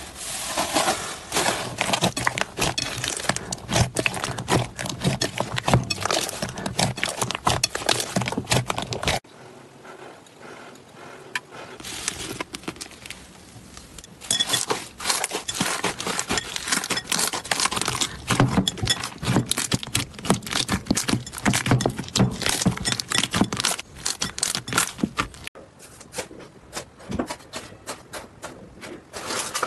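Slime being squeezed and pressed by hand, giving dense irregular crackling and clicking. There is a quieter stretch about a third of the way in, and the sound changes abruptly several times as one clip cuts to the next.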